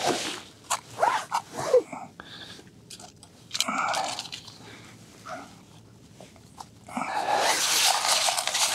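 Snow and slush crunching as a tip-up is set into an ice hole and snow is packed around it: scattered crunches and brief squeaks at first, then steadier crunching from about seven seconds in.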